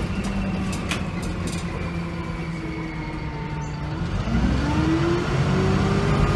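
VDL SB200 Wright Commander bus's diesel engine, heard from inside the saloon. It runs steadily with its note easing down slightly, then about four seconds in it revs up, rising in pitch and getting louder as the bus accelerates.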